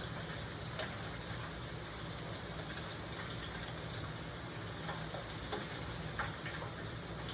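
Battered seafood frying in hot oil: a steady sizzle with scattered small pops and crackles, over a steady low hum.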